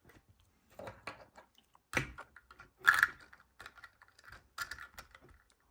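Hard plastic Lego pieces clicking and knocking as the built excavator and its engine piece are handled, a handful of separate, irregular clicks.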